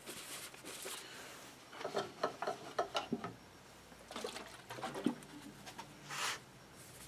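Paper towel crinkling and rustling as it is handled and wiped around a rifle barrel, with scattered light clicks and taps, and a short swish near the end.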